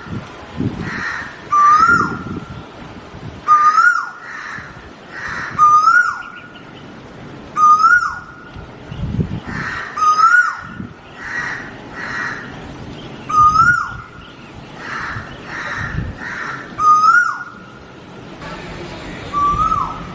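A bird calling over and over, about once every two seconds, each call a short whistled note that rises and then drops steeply.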